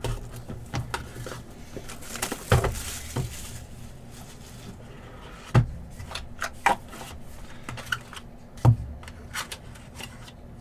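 Hands opening a cardboard trading-card hobby box and handling a card in a hard plastic case: scattered knocks and taps, with a brief rustling scrape about two and a half seconds in.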